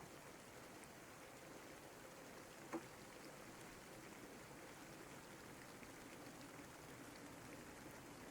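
Soft, steady rain with scattered faint drip ticks, and one sharper tick a little under three seconds in.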